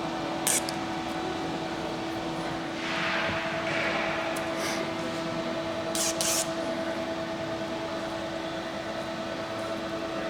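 Steady machine hum with a second, higher tone joining about three seconds in. Short rustling and a few quick hissy scrapes sound over it.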